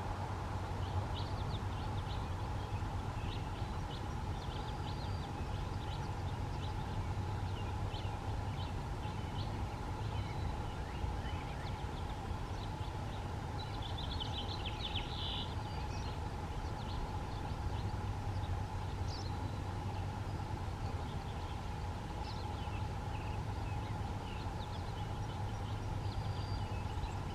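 Small birds chirping and calling in the background over a steady low hum, with a brief flurry of chirps about halfway through.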